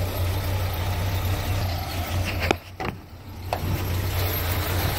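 Ford 460 big-block V8, converted to run on propane, idling with a steady low hum. About two and a half seconds in, a knock of the camera being handled briefly muffles everything, with a second knock about a second later.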